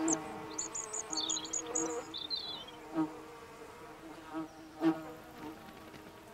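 A flying insect buzzing in short passes, loudest at the start and again about three and five seconds in. Over it in the first two seconds come a small bird's quick, high chirps and a short twitter.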